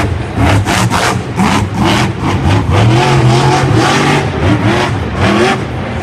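Monster truck's supercharged V8 revving hard in repeated throttle bursts, its pitch rising and falling, as the truck spins in circles on the dirt.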